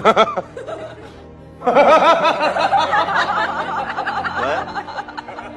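Laughter: a short giggling burst at the start, then a longer stretch of many overlapping laughing voices from about two seconds in, with music underneath.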